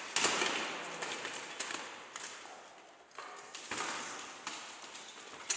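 Blunt steel weapons striking plate armour and armoured fighters clashing in a buhurt bout. A sharp clang comes just after the start, two more a little past three seconds in and another near the end, with smaller clanks and knocks of armour between, echoing in a large stone hall.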